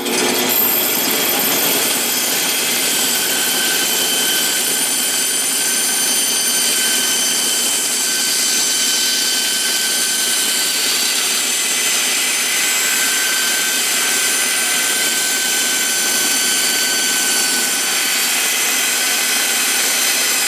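Bandsaw running and cutting a curve through two hot-glued wooden boards: a steady, even noise with a faint high whine over it.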